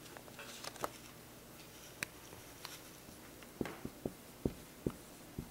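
Dry-erase marker writing on a whiteboard: faint scattered taps, turning into a quick run of short ticks and squeaks in the second half.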